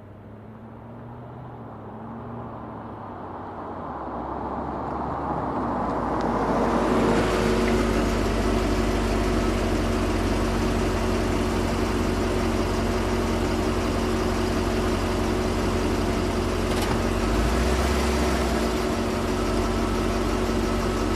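A 1940s car arriving: its engine grows steadily louder over about seven seconds as it approaches, then runs at a steady even pitch close by.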